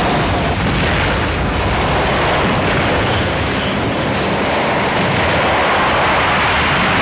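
Volcanic eruption sound effect: a loud, steady rumbling roar with no breaks.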